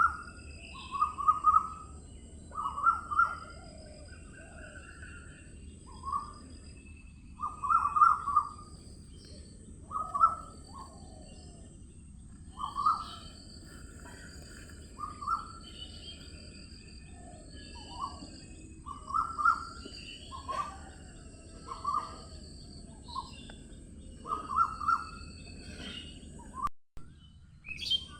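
Several birds calling and singing. Short, loud, lower-pitched calls repeat every second or two, with fainter higher chirps between them over a steady high hiss. The sound cuts out briefly near the end.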